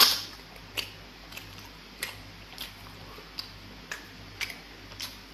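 Close-miked eating by hand of pounded fufu with egusi pepper soup: wet mouth clicks and smacks while chewing, a sharp one at the start and then one about every half second.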